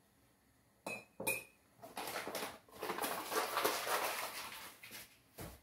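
A metal spoon clinks twice against a cooking pot with a short ring, followed by a few seconds of dishes and utensils clattering and scraping, and a single knock near the end.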